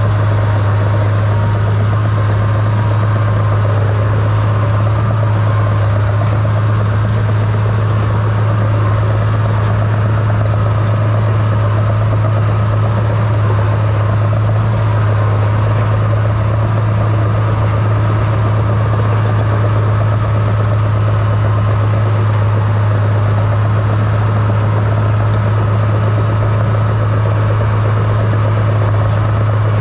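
Crawler dozer's diesel engine running steadily with a constant low drone, working as the blade pushes snow, heard close to its exhaust stack from the operator's seat.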